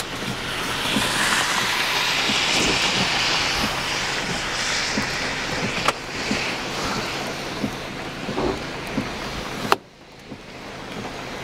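A car passing on a wet road: a hiss of tyres on water that swells and then fades. Near the end there is a sharp thump, after which the sound drops away suddenly.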